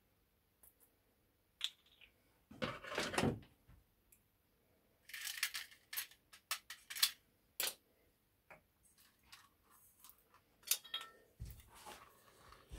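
Light clicks and clinks of small cut lead slug cores being handled in a round metal tin while swage lube is dotted on, with a brief rubbing sound about three seconds in and a dull knock near the end.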